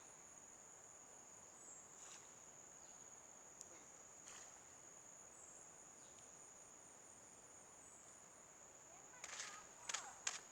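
Insects droning: a faint, steady high-pitched whine that never lets up, with a few sharp clicks near the end.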